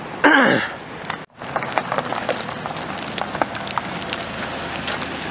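Footsteps crunching on gravel: a dense run of small crackling clicks over a steady rustle.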